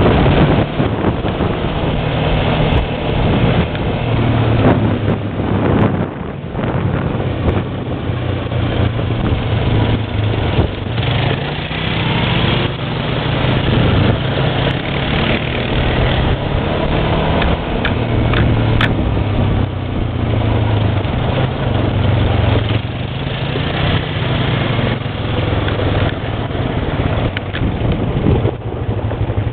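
ATV engine running, a steady low engine hum under rough noise, its level dipping and rising now and then.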